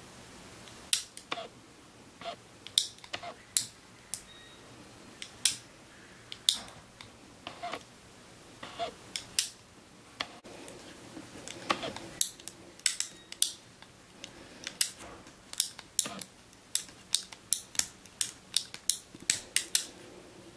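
Tranter double-trigger revolver's action being worked by hand: sharp metallic clicks of the lock as it is cocked and released and the cylinder turns. The clicks come irregularly at first, then faster and closer together in the second half.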